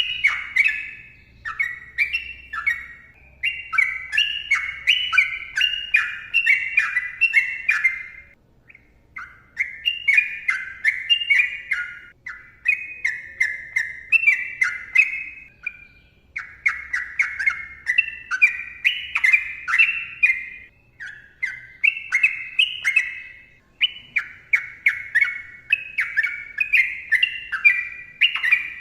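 Sooty-headed bulbul (trucukan) singing long, fast runs of chattering, warbling notes, phrase after phrase with short pauses between them.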